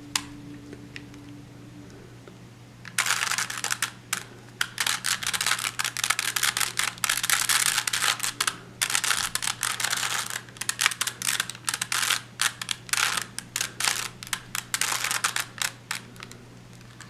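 Plastic 3x3 Rubik's cube being turned by hand, a fast, dense run of clicking and clacking face turns starting about three seconds in and stopping shortly before the end, as the last moves of the solve are made. A low steady hum runs underneath.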